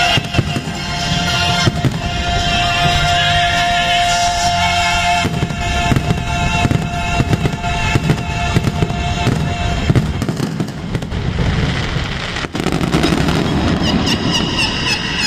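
Fireworks bursting and crackling in quick succession over loud show music. The music's held tones stop about ten seconds in, leaving the crackle and bangs, with one sharp crack near the end.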